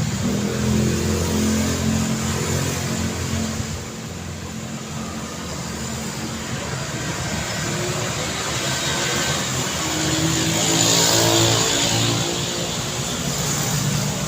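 Street traffic: engines running close by in the first few seconds. Then a vehicle passes near about ten seconds in, its engine pitch rising over a swell of tyre and road noise that peaks and fades.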